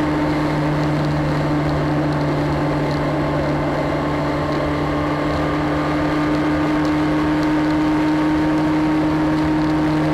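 Motorcycle engine holding a steady note at motorway cruising speed, with wind and road noise over it.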